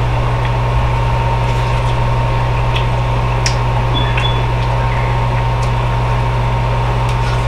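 Steady low hum and whir of a Breville Smart Oven Air's convection fan, running with an unusual noise that the owner says started out of the blue. A few faint clicks over it.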